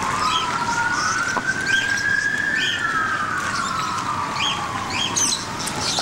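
A siren wailing, its pitch sweeping slowly up for about two seconds and then falling away. Small birds chirp over it now and then.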